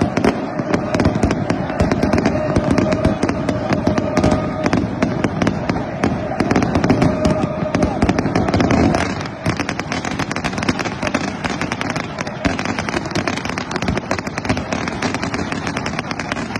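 Dense, rapid crackling of many fireworks and firecrackers going off without pause, over the steady noise and voices of a large stadium crowd.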